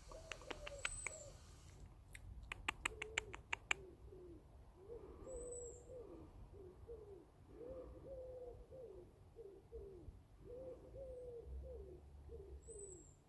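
Pigeon cooing softly: a long, faint run of short low coo notes, over and over. Two quick runs of sharp clicks, the second and louder one about two and a half to four seconds in, and a few brief high chirps.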